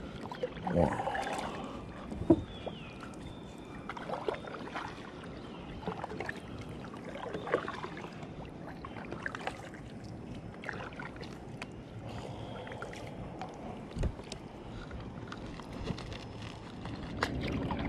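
Kayak paddle strokes in calm water, blades dipping and dripping at an irregular pace, with occasional sharp clicks and knocks.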